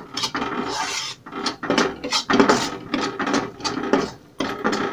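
A steel ladle scraping and stirring a thick, crumbly masala of ground urad dal, besan and spices around a metal kadhai, in repeated rasping strokes as the kachori filling is roasted.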